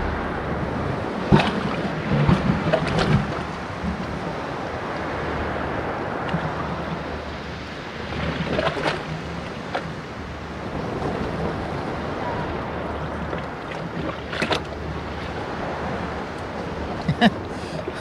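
Small sea waves washing over a wet concrete and rock shoreline, with wind on the microphone. A few short, sharp knocks and taps stand out over the wash.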